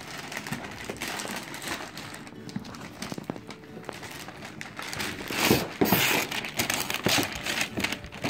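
Gift wrapping paper crinkling and rustling in irregular handfuls as a child pulls it off a cardboard toy box, louder from about five seconds in.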